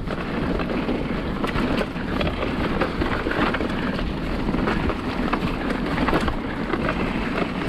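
Mountain bike riding down a loose trail: tyres rolling and skidding over dirt and stones, with steady wind rushing over the microphone and many small clicks and knocks from the bike over the bumps.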